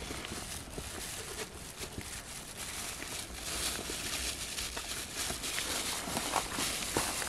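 Clear plastic bag rustling and crinkling, with scattered light clicks and ticks as it is handled, over a steady outdoor hiss.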